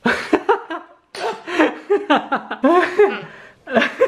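A woman's voice groaning and gagging in disgust after swallowing a spoonful of insect larvae, in repeated loud bursts mixed with laughter.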